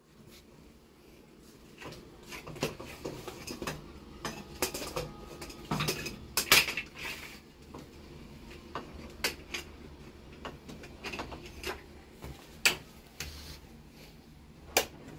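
Dishes and cutlery clinking and tapping at irregular intervals, with a few sharper ringing clinks a little past the middle.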